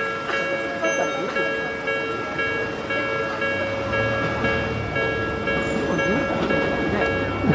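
Japanese railway level crossing warning bell ringing in a steady repeating pattern. An Odakyu electric train rumbles through the crossing, its sound growing from about three and a half seconds in.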